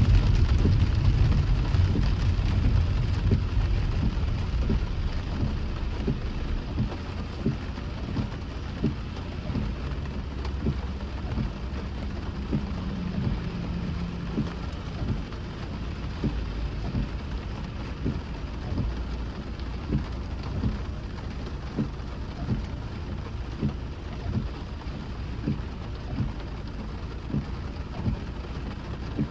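Rain drops tapping on a moving car, many irregular taps a second over the steady low rumble of the car on wet road. The rumble is louder at the start and eases off over the first several seconds.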